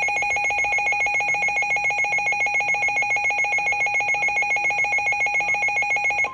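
Emergency Alert System attention tone: a loud electronic alarm of a few fixed pitches, pulsing rapidly at about eight beats a second, which cuts off suddenly near the end.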